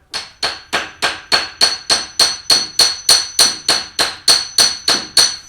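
A hammer driving a metal grounding stake deeper into gravel: about eighteen steady, evenly spaced blows, roughly three a second, each with a short metallic ring.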